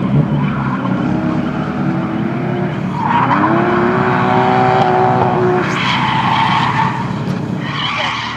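Toyota Cresta's JZ straight-six engine revving hard as the car drifts, tyres squealing and skidding. The revs climb about three seconds in, hold for a couple of seconds, then fall away.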